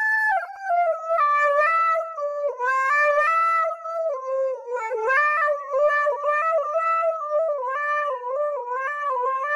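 Siberian husky howling in one long, wavering howl that rises and falls in pitch, with brief dips and breaks.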